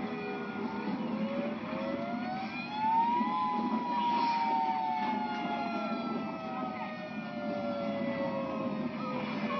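Outdoor tornado warning siren wailing. Its pitch rises over about two and a half seconds to a peak about three seconds in, the loudest point, then slowly falls away through the rest.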